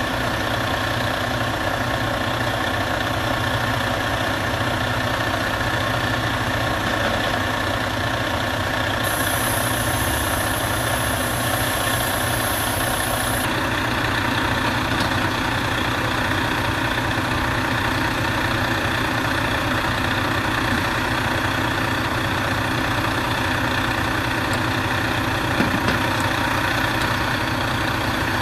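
A heavy truck engine idling steadily, with a high hiss added for about four seconds near the middle.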